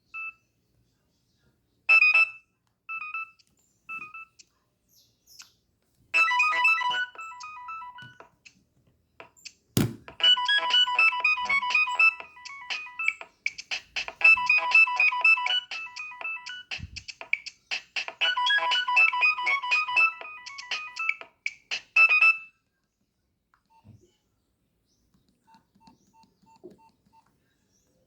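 Nokia 6560 mobile phone playing a ringtone through its small built-in speaker: a fast, beepy electronic melody starts about six seconds in and runs for about sixteen seconds. A few short key beeps come before it, and there is a sharp click near the ten-second mark.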